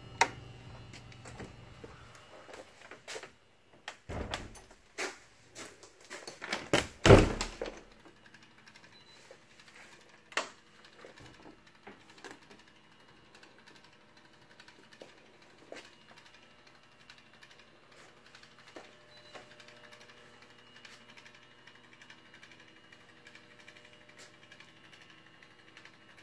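A run of knocks and heavy thumps about four to eight seconds in, the loudest near the middle, then only faint scattered ticks over a low steady hum.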